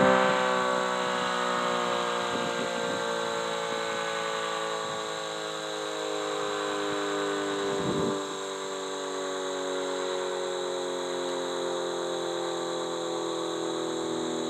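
Sentry 40V2T two-tone electromechanical siren winding down after its full-alert steady tone: its chord of tones slides slowly and steadily lower as the rotor slows, fading over the first few seconds and then holding.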